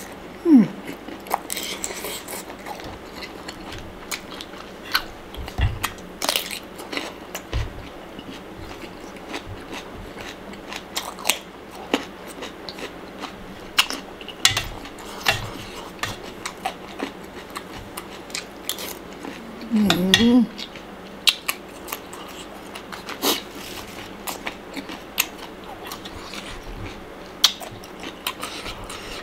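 Close-up eating sounds: biting and chewing crunchy Thai pounded salad with shrimp, stink beans and baby carrots, with many short crunches and clicks. A metal spoon now and then scrapes and clinks against the stainless steel tray.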